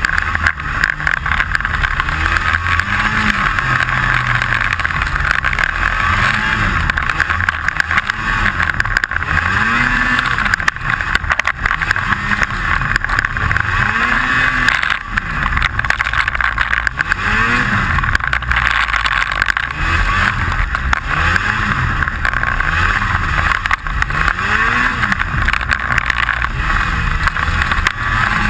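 Snowmobile engine revving up and easing off again and again, every couple of seconds, as the throttle is worked through deep snow. A steady rattle runs under the engine throughout.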